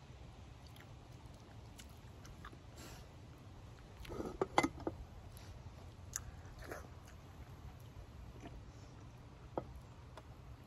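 Close-miked chewing and mouth sounds of a person eating by hand, with a cluster of louder wet smacks about four to five seconds in, over a steady low background hum.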